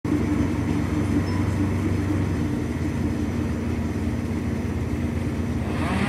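Engine running steadily at a low pitch. Near the end a higher whine comes in, rising in pitch.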